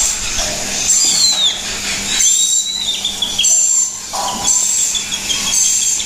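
Sulphur-crested cockatoo chick giving harsh, rasping begging calls about once a second while being syringe-fed. This is its natural feeding response, and so much drive is the sign of a healthy chick.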